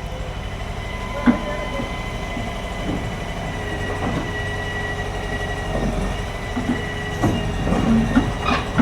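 Excavator's diesel engine running steadily with a thin high whine, broken by scattered metal knocks and clanks, the loudest about a second in and near the end.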